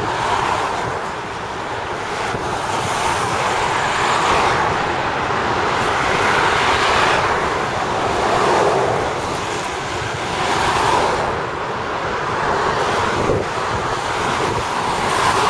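Train of empty covered steel-coil wagons rolling past: a steady rush and rumble of wheels on rail that swells and eases about every two seconds as the wagons go by.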